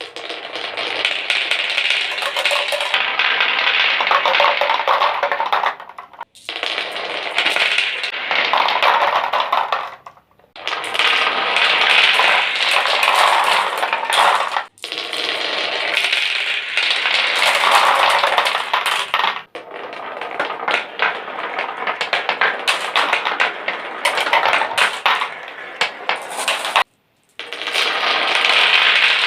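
Marbles rolling and clattering down a marble run: a dense stream of small clicks and rattles, in several stretches broken by brief gaps.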